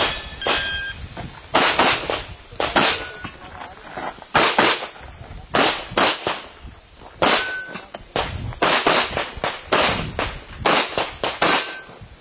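Shot-timer start beep about half a second in, then a rapid string of handgun shots, many fired in quick pairs as a competitor engages targets, with brief metallic rings from steel targets being hit now and then.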